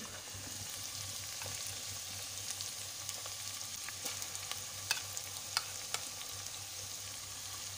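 Garlic and grated ginger sizzling steadily in hot oil in a steel pot, stirred with a metal spoon, with a few sharp clicks of the spoon against the pot in the second half.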